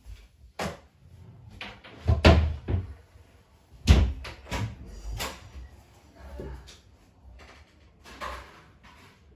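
A string of knocks and thumps with lighter clatter between them, the two loudest about two and four seconds in, like doors or cupboards being handled in the house.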